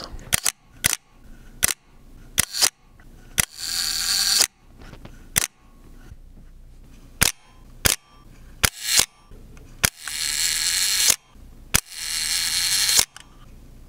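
Close-miked shutters of 1950s Asahi Pentax S and K SLRs: a series of sharp clicks as the mirror and shutter fire, with three longer, about one-second rasping strokes as the film advance is wound, about three and a half seconds in and again near ten and twelve seconds. The S's shutter is the smoothest and quietest of the three, and the K's is very harsh and much louder.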